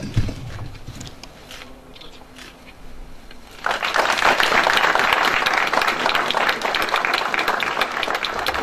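An audience applauding, breaking out suddenly about three and a half seconds in and then holding steady. The first few seconds are quieter.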